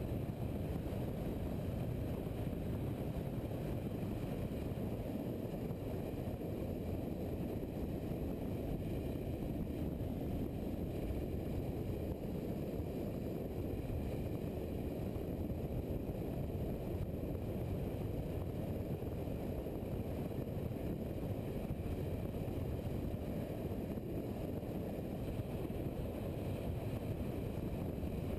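Adventure motorcycle cruising at a steady speed: a steady, muffled rumble of engine and wind noise with no revving or gear changes.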